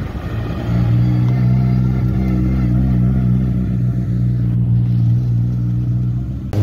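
Lada rally car's engine running steadily without revving, a close, even engine note as the car rolls slowly past.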